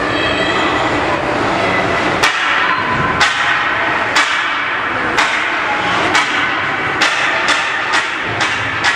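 Ice arena crowd noise with a run of sharp knocks starting about two seconds in, roughly one a second and coming faster near the end.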